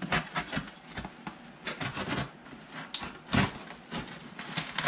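Tape on a cardboard shipping box being slit with a small blade and the box handled: irregular scratching, scraping and rustling of cardboard and tape, loudest about three and a half seconds in.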